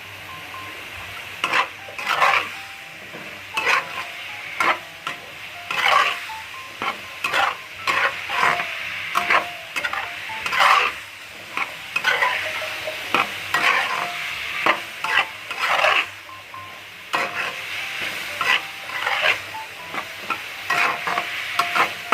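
Potatoes and fried spice paste being stirred in a hot pan: a utensil scrapes the pan roughly once a second over a steady sizzle of frying oil.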